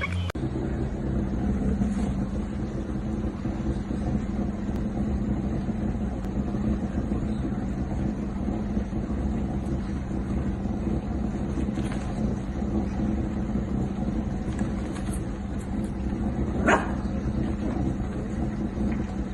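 Steady low drone of a vehicle engine, with one brief sharper sound about seventeen seconds in.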